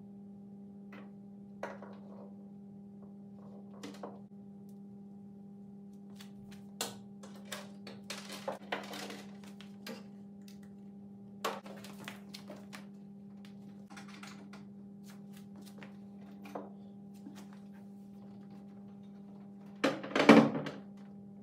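Cables being handled and plugged into a small LED control box: scattered light clicks and knocks over a steady low hum. Near the end comes a louder knock and clatter as a flat-screen TV is hooked back onto its wall bracket.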